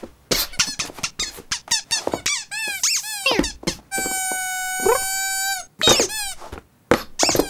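Cartoon kitten squeaks during play: a quick run of short, high squeaks that slide up and down, then one long steady squeak lasting well over a second about four seconds in, then a few more short squeaks near the end.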